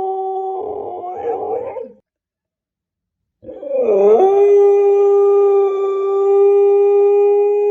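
Siberian husky puppy howling. A long, steady howl breaks into a wavering whine and stops about two seconds in. After a second and a half of silence, a new howl starts with a dip in pitch and is then held steady.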